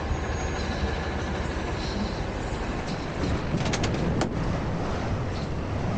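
Front-loader garbage truck's engine running while the truck creeps up to the dumpsters, with a few brief clicks a little past halfway.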